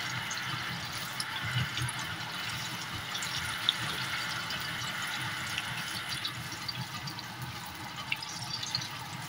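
Banana-batter fritters deep-frying in a pan of hot oil: a steady sizzle with scattered small pops and crackles.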